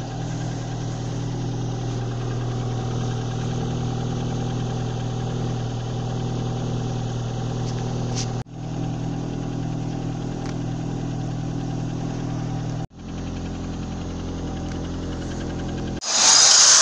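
Car engine idling steadily, heard in three stretches joined by two abrupt cuts. This is the noise the owner takes as a sign that the engine needs an overhaul; he suspects burning in cylinder 4.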